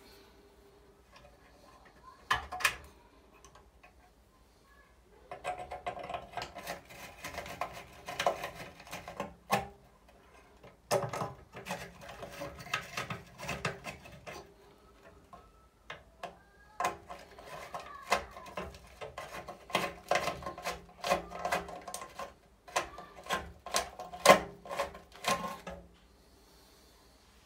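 Metal clicking, scraping and rattling as a screwdriver works the screws of an old exhaust fan's rusted motor bracket and the motor and blower wheel are worked loose from the sheet-metal housing. The clatter comes in spells of a few seconds with short pauses between.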